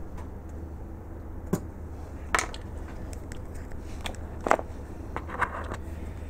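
A small plastic pot of grease handled and set down on a cutting mat: a few light clicks and knocks, the loudest about four and a half seconds in, over a steady low hum.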